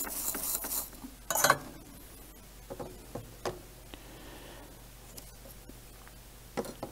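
Small tools and parts being handled on a workbench: a brief rustle, a sharper clack about a second and a half in, then scattered light clicks and ticks.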